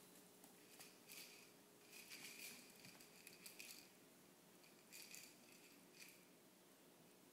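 Faint, short scratchy and squeaky sounds in a handful of brief clusters, from a puppy tussling with an octopus toy.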